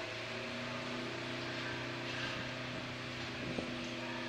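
Double-deck ferry's diesel engines running steadily as it pulls away from the pier, the engine note changing just after the start. A short knock comes about three and a half seconds in.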